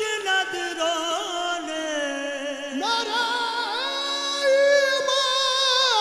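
Qawwali lead vocalist singing a long wordless melismatic run, with held notes shaking in vibrato and winding up and down in pitch, over a steady held accompaniment.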